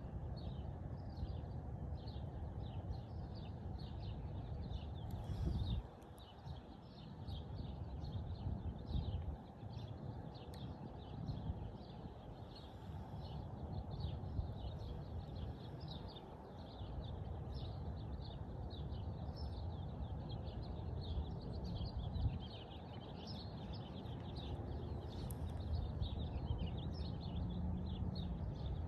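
Many small birds chirping in quick, overlapping calls over a steady low rumble, with a couple of soft knocks.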